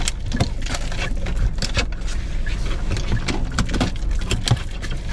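Low steady rumble of a car idling, heard inside the cabin, under scattered clicks and rustles as a seatbelt is pulled across and buckled and clothing shifts against the seat.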